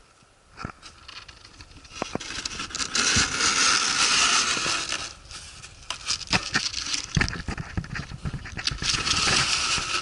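Cardboard box flaps being pulled open and rubbing together: dry scraping and rustling, starting about two seconds in, with scattered sharp clicks and knocks.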